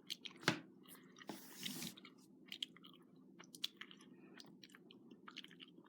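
Faint, irregular small clicks and ticks over a low steady hum, with a short hiss about one and a half seconds in.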